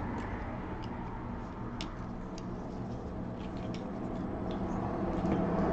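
A steady low hum with a few light, scattered clicks, swelling slightly near the end.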